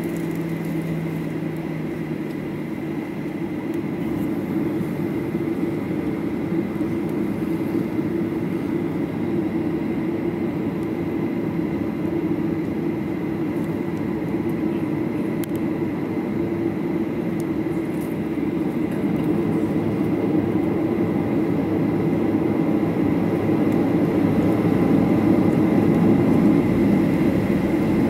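Cabin noise inside a Boeing 737-800 taxiing: its CFM56-7B jet engines run with a steady hum and a thin high whine, growing louder over the last third.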